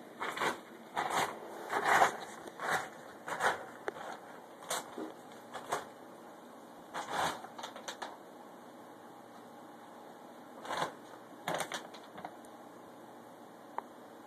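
Dog nosing and pushing at paper-and-plastic dog food bags, the bags crinkling and rustling in irregular bursts, busy for the first few seconds and then sparser with a short flurry near the end: nudging the food as if to bury it, as the owner takes it.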